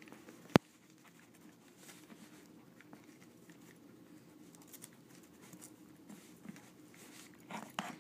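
Small dog pawing and scratching at a wrapped gift box, faint scattered scratches and taps on the paper, with one sharp click about half a second in.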